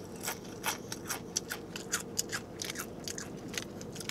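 Tortilla chips being bitten and chewed: a quick, uneven run of crunches.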